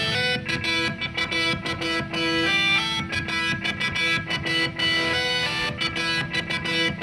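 Instrumental rock background music led by guitar.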